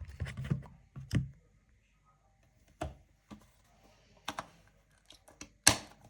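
Scattered clicks and knocks of a robot vacuum and its parts being handled and set in place, irregular with short pauses; the loudest knock comes near the end.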